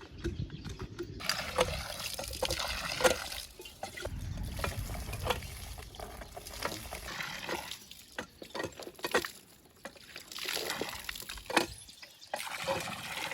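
Water splashing and trickling in uneven stretches, with a scatter of small clicks and brief lulls.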